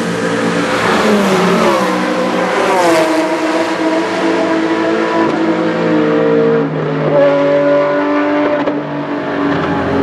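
Porsche 997 GT3 Cup race car's 3.6-litre flat-six under full throttle, its pitch dropping at gear changes, twice in the first three seconds and again later.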